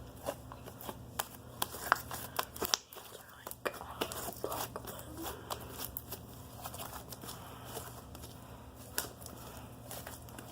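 Slime being squished and stretched by hand, giving off irregular sticky crackling and popping clicks, a sharper pop about two seconds in.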